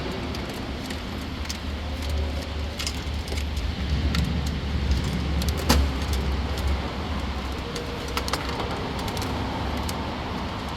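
Scattered light clicks and rattles of a plastic wiring-harness connector being handled and fitted, over a steady low rumble.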